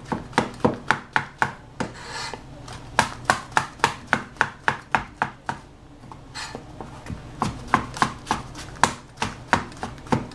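Chinese cleaver slicing shiitake mushrooms on a plastic cutting board: quick, even knocks about four a second. The knocking is broken twice by a short scrape.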